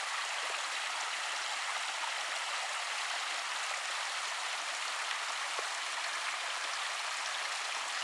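Creek water running with a steady, even rush.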